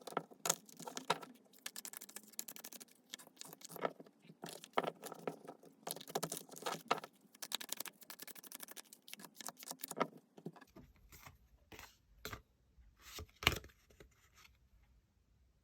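Tarot cards being shuffled by hand: a dense run of quick rustling clicks, giving way about ten seconds in to a few separate sharp taps before it falls quiet.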